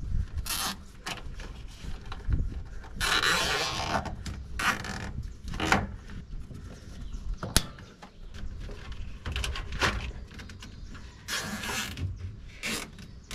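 Hands working a trailer wiring harness and zip ties under a truck bed: plastic wire loom and wires rustling in bursts, with scattered small clicks and one sharp click about seven and a half seconds in.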